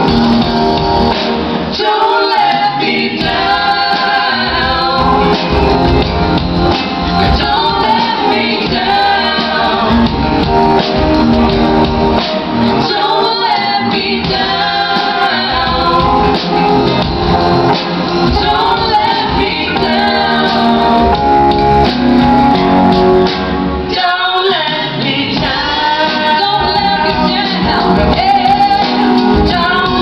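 Live music: a band playing while a group of men and women sing together, recorded from the audience in a theatre hall.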